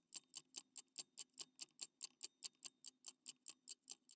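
Mechanical watch ticking, quiet, even ticks at about five to six a second.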